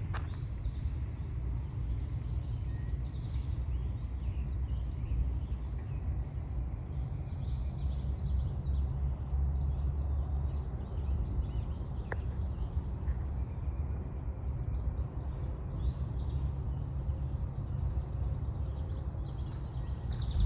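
Outdoor woodland ambience: high, rapid chirping keeps on over a steady low rumble.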